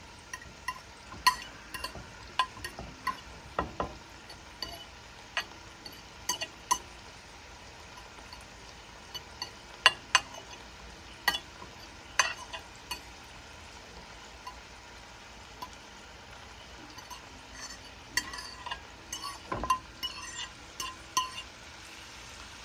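A metal fork scraping and tapping against a cutting board and pan rim as chopped onions and vegetables are pushed into hot oil, making irregular clicks with a lull in the middle, over a faint steady sizzle of the vegetables frying.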